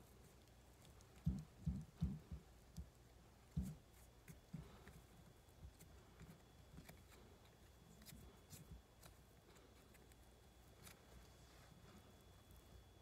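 Near silence broken by handling noise from hands working at a fly-tying vise. A cluster of soft, low thumps comes between about one and four seconds in, then only scattered faint ticks.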